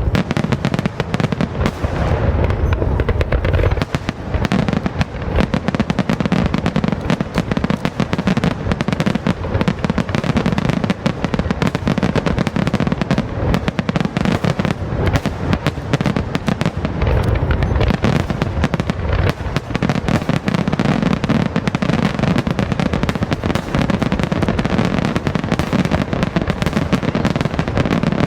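Fireworks finale barrage: aerial shells bursting in rapid, overlapping succession, a continuous dense run of bangs and crackle with deep booms underneath.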